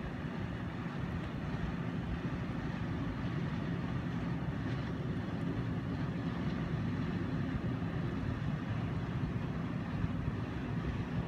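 Container ship's engines running as it passes close by, a steady low drone with a hum, growing slightly louder.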